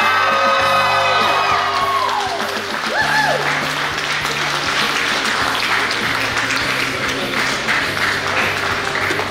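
A small crowd cheering and whooping, then clapping from about three seconds in, over steady background music.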